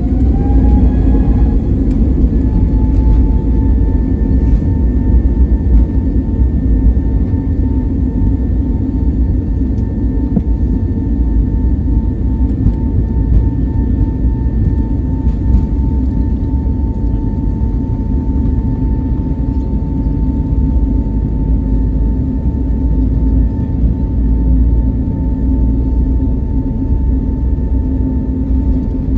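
Airliner's jet engines spooling up for takeoff: a whine rises over the first second or so, then holds steady over a loud, low rumble of the takeoff roll, heard from inside the cabin.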